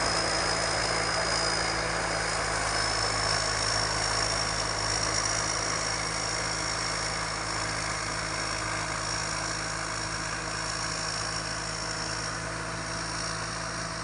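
Thai Seng Yont rice combine harvester running steadily while harvesting, its diesel engine hum carrying a thin high whine, slowly growing fainter.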